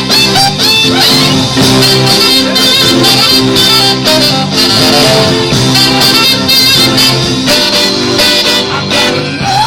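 A live band playing: continuous, loud music with instruments holding steady notes.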